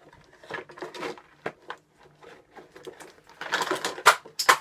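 Irregular clicking and clattering of small hard objects being handled, growing denser near the end with a couple of sharp knocks.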